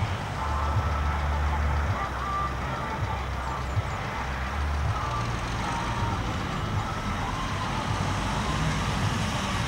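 Sound at a railway level crossing: a steady low rumble with faint high tones that come and go, typical of the crossing's warning bells.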